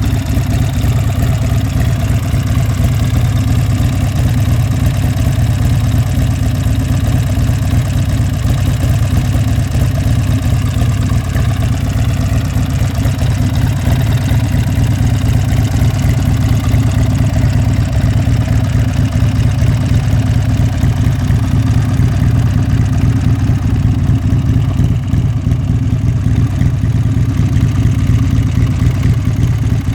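Buell X1 Lightning's air-cooled V-twin engine idling steadily.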